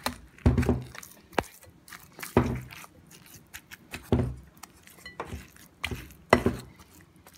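A spoon stirring a heavy, wet fruit dough in a glass mixing bowl: dull knocks and scrapes against the bowl, about five of them, every second or two.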